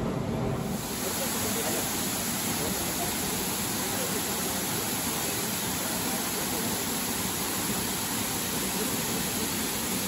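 Steady rushing of a waterfall, which comes in about a second in and then holds at an even level.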